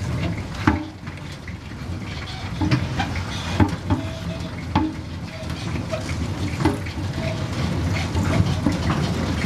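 Road roller engine running steadily at a low pitch, with irregular sharp clicks and knocks over it.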